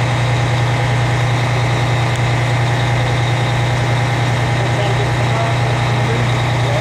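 A large engine idling steadily, a constant low drone that does not change.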